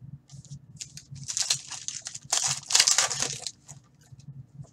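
Foil wrapper of a trading-card pack crinkling and tearing as it is ripped open and handled, in two bursts of crackle from about a second in to past three seconds.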